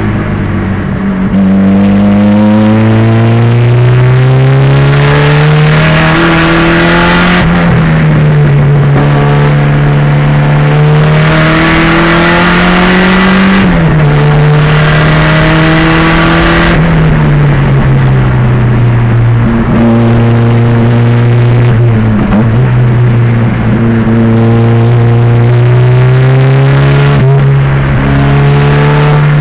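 Turbocharged 2.0-litre engine of a 1987 Pontiac Fiero race car at full throttle on track. Its pitch climbs through the revs and drops sharply at gear changes about 7, 14 and 17 seconds in. It then winds down for several seconds before pulling hard again.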